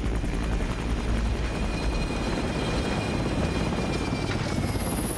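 Large helicopter landing on a ship's helideck: the rotor blades beat in a rapid chop under a high turbine whine, which falls slightly in pitch about four seconds in.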